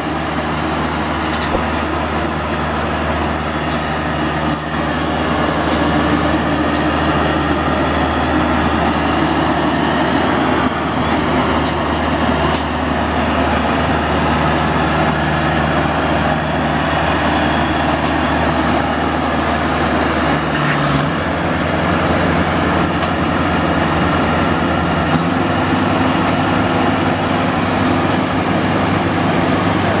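Sumo Crown tracked rice combine harvester's engine running steadily as the machine drives, with a low hum that changes pitch about twenty seconds in and again a few seconds later.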